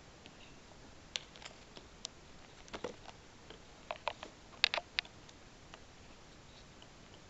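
Handling noise: irregular light clicks and taps, a few close together about three seconds in and the loudest just under five seconds in.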